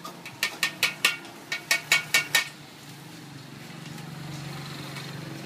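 A metal spatula clinking against a steel wok about nine times in two quick runs, each clink ringing briefly. A steady low hum follows in the second half.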